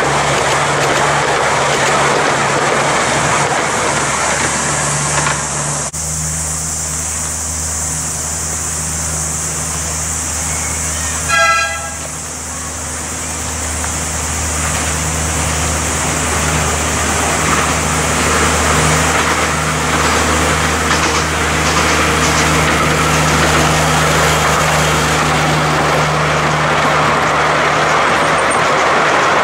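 Miniature passenger train rolling along its track, the carriages' wheels and the small locomotive's engine running with a steady low hum. About eleven seconds in, the approaching locomotive gives one short horn toot, and the sound of the train builds again as it passes close near the end.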